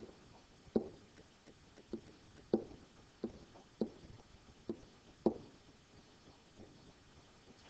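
Stylus tapping and scraping on a pen-input drawing surface as small arrows are drawn by hand. There are about a dozen short, sharp taps at an uneven pace, and they grow sparser and fainter after about six seconds.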